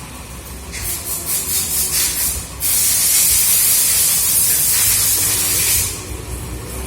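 Pressurised spray hissing in a run of short bursts, then one long continuous blast of about three seconds, during parts cleaning on a car engine tune-up.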